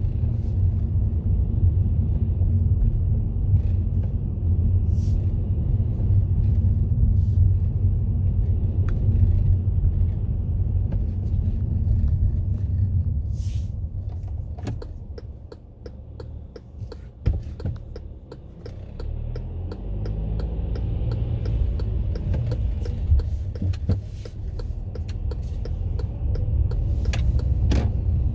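A car being driven, its engine and tyres making a steady low rumble that eases for a few seconds in the middle before building again, with scattered small clicks and ticks over it.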